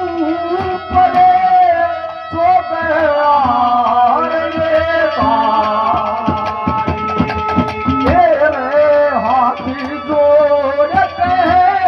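Instrumental interlude of Haryanvi ragni folk music: a sliding, ornamented melodic lead over steadily held drone notes, with a hand drum keeping a quick beat.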